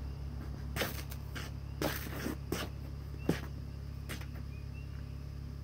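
Work boots stepping and scuffing across a concrete pad in a handful of irregular footfalls, over a steady low hum.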